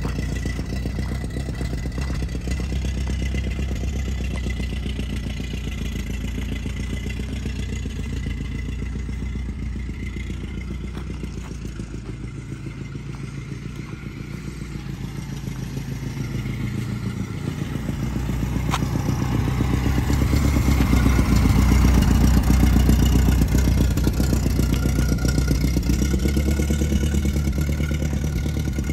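1921 Ford Model T's four-cylinder flathead engine running as the car drives off, fading as it moves away and growing louder again as it comes back, loudest about two-thirds of the way through.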